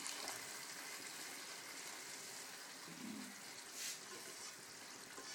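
Water poured from a plastic jug into a hot pan of rice that has been fried in oil and butter, hissing and sizzling as it hits, the sizzle easing slowly; this is the cooking water going in after the rice has been fried. A brief clink about four seconds in.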